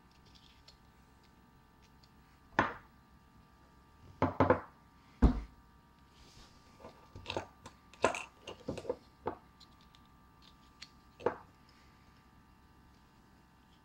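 Handling noises from a plastic N scale locomotive shell and a glass bottle on a tabletop: scattered clicks and knocks, with a heavier thump about five seconds in. A faint steady hum runs underneath.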